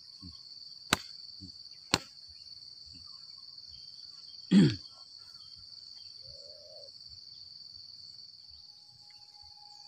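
Steady high-pitched insect chirring, with two sharp clicks about one and two seconds in. A short falling vocal call, the loudest sound, breaks in about halfway through.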